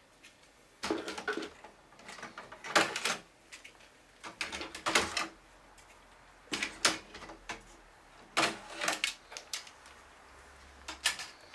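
Clicking and clattering of plastic and metal parts as a Synology DS1815+ NAS is handled and opened up to reach its inner RAM slot, coming in about six short clusters a second or two apart.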